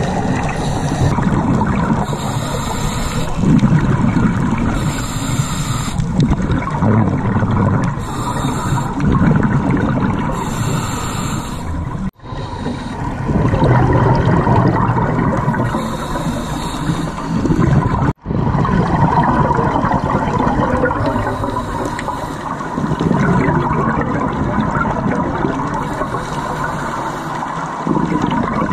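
Scuba diver breathing through a regulator, heard underwater: a hiss on each breath every two to three seconds, with the exhaled bubbles rumbling and gurgling between them. The sound cuts out briefly twice, about twelve and eighteen seconds in.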